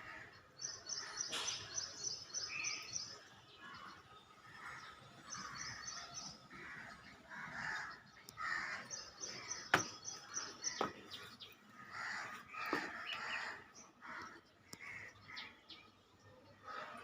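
Birds chirping, with a rapid, evenly repeated high trill in several runs of one to two seconds, and one sharp click about ten seconds in.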